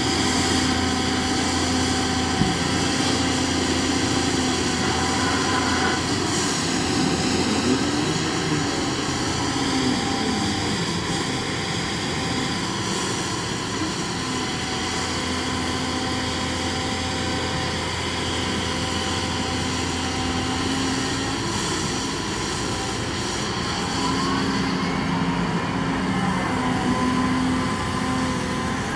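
Caterpillar M322F wheeled excavator's diesel engine running steadily, with the hydraulics whining and sliding up and down in pitch twice as the upper structure swings and the boom and arm move.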